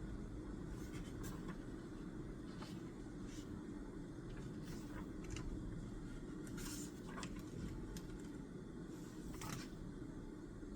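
Writing on paper at a desk: short scratchy strokes at irregular intervals, with a longer run of scratching about seven seconds in, over a steady low room hum.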